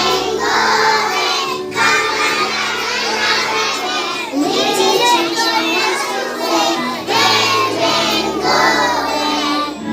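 A group of young children singing a nursery rhyme together in phrases of a few seconds, over steady backing music.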